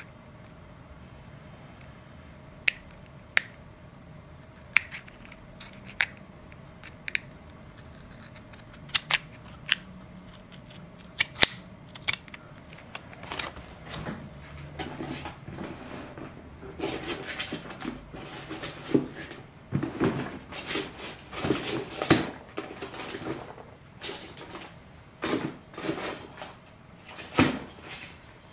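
Scissors snipping the edge of a thin plastic servo cover: about a dozen short, sharp, separate snips over the first twelve seconds, followed by a busier stretch of scraping and clicking through the second half.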